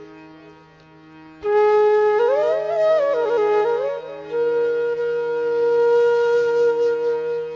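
Background music: a flute melody over a steady drone. The flute comes in about a second and a half in with quick ornamented notes, then settles on a long held note.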